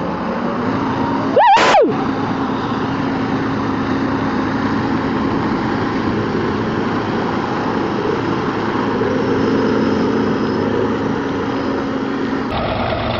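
Challenger articulated four-wheel-drive tractor's diesel engine running steadily under load as the tractor ploughs through deep mud. About a second and a half in, a brief, loud, wavering high tone sounds over it.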